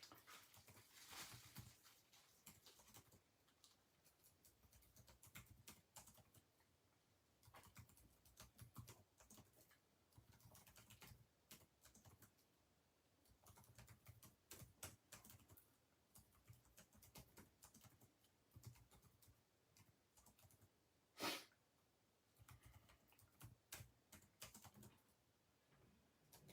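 Near silence with faint, scattered clicks and taps, and one sharper click about twenty-one seconds in.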